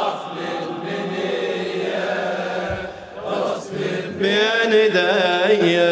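Male voices chanting a Shia Muharram lamentation (latmiya) without instruments. The chant dips briefly about three seconds in, then comes back louder and fuller.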